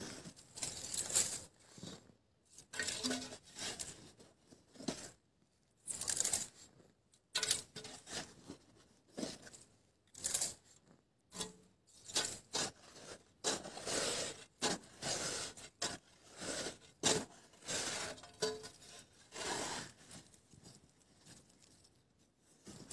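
Bare hands digging and scraping into dry, crumbly sandy soil at a burrow mouth. The sound comes in short bursts of scraping and crunching, each about a second long, broken by abrupt silent gaps.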